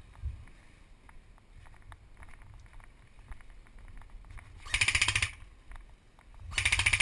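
Two rapid bursts of full-auto fire from a G&G UMG (UMP45-style) electric airsoft gun, the first about half a second long near five seconds in, the second shorter at the very end.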